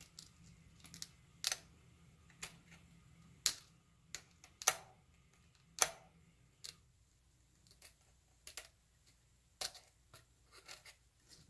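Hobby knife blade cutting and prying into hardened glue around a tiny servo set in a foam wing: irregular sharp clicks and short scrapes, the loudest about halfway through.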